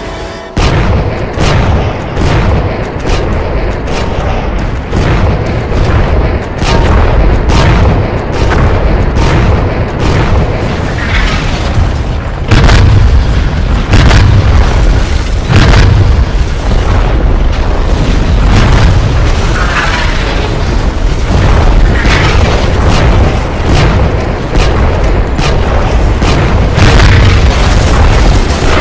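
Battle sound effects: a rapid series of explosions and booming impacts over a heavy low rumble, starting suddenly about half a second in, with music underneath.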